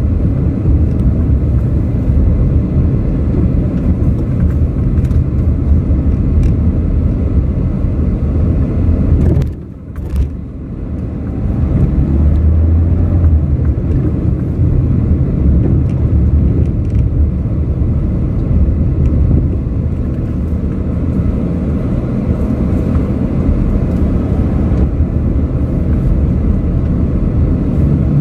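Car cabin noise while driving: a steady low rumble of engine and road. It dips sharply for about a second, about ten seconds in, then carries on.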